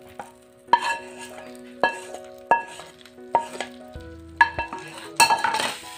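Wooden spatula scraping and knocking against a kadhai about six times as hot ghee tadka with fried cashews, almonds and raisins is pushed out into a bowl of milky sewai. Near the end there is a short sizzle as the hot ghee hits the milk.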